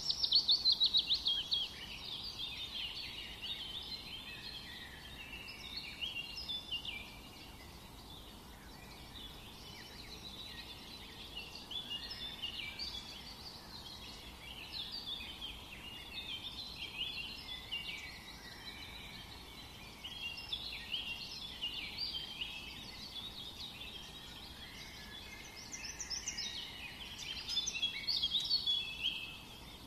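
Many small birds chirping and twittering together in a continuous chorus of short high calls, louder about a second in and again near the end.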